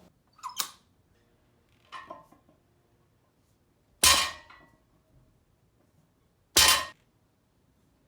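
Loaded barbell with weight plates clanging down on the floor: two lighter knocks, then three loud strikes about two and a half seconds apart, each ringing briefly. Deadlift warm-up repetitions.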